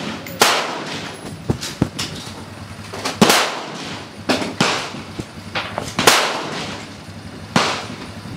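Gunshots on an outdoor shooting range: about nine sharp reports at irregular intervals, some louder than others, each trailing off in an echo.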